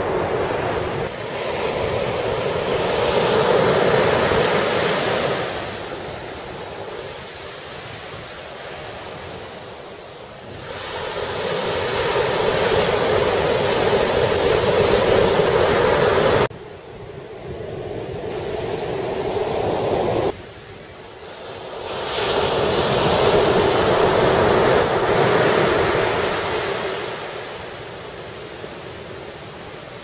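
Surf breaking and washing up a black sand beach, the rush of the waves surging louder and fading back several times. The sound drops off abruptly twice near the middle.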